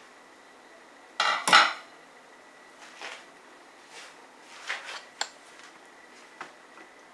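Metal kitchenware clattering: a loud double clatter about a second in, then a few lighter knocks and clinks.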